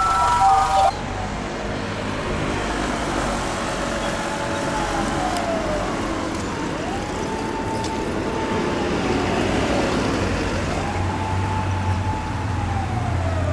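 An emergency vehicle's siren wailing over street traffic: a slow rise, a held note and a slow fall, repeated, each cycle a few seconds long. A short electronic melody cuts off about a second in.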